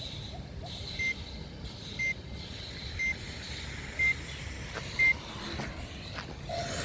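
Electronic beeping: five short, high beeps about one a second, each louder than the last, over a faint steady high whine. Just before the end a rushing noise starts to build.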